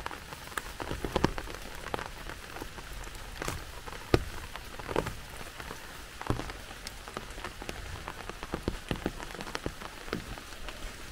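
Steady rain with irregular sharp drops ticking close by, a few of them louder, the loudest about four seconds in.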